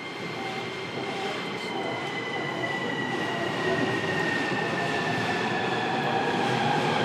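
JR East E233-7000 series train heard from inside the motor car as it pulls away, with the inverter and traction motors whining and growing steadily louder as speed builds. Several high tones glide slowly downward over the running rumble.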